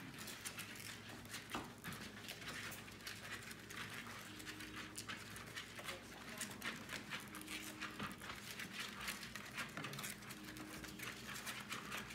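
Two-and-a-half-week-old Labrador puppies suckling from their mother: many quick, faint, irregular wet clicks and smacks.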